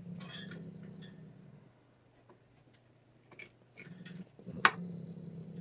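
Toothbrush on a long handle rubbing over a cat's head fur in strokes, with scattered light clicks and one sharp click a little after halfway through.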